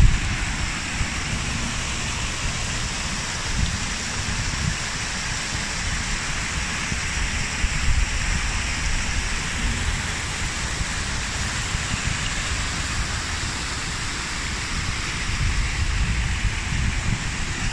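Steady rush of falling water, with uneven low buffeting of wind on the microphone underneath.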